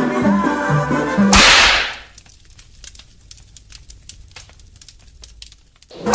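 Background music cuts off about a second in under a loud whip-like whoosh sound effect. It is followed by a few seconds of faint crackling clicks, then a second whoosh rises near the end as the music comes back.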